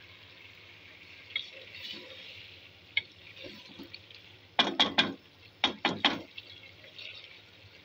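Chickpeas simmering with a steady hiss in a pressure-cooker pot, their cooking water nearly boiled off. A bit over halfway through, a spoon stirs them and knocks against the pot in two quick clusters of three or four strikes.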